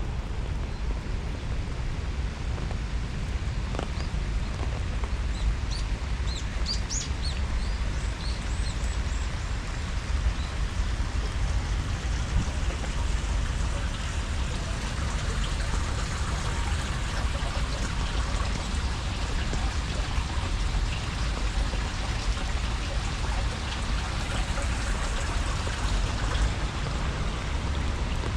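Steady rain falling and pattering, growing denser about halfway through, over a low steady rumble. A small bird chirps several times a few seconds in.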